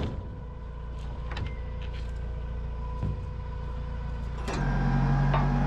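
An engine idling steadily, with a few light knocks as sheets of plywood are handled on a wooden trailer deck. About four and a half seconds in, the engine sound turns louder and deeper.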